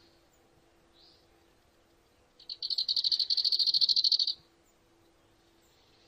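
A loud, high-pitched animal trill of rapid pulses, about a dozen a second, starting about two and a half seconds in and lasting about two seconds, over a faint high hum.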